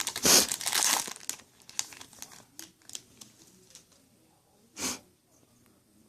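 Foil wrapper of a Yu-Gi-Oh! booster pack crinkling and tearing as it is opened, loudest in the first second or so, then fading to light rustling as the pack is handled. There is one short louder swish about five seconds in.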